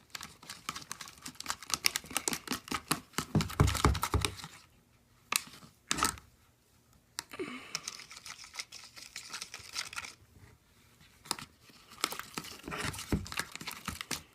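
Glue-and-borax slime being stirred in a bowl: sticky crackling and clicking in bursts, with a few louder knocks and short pauses.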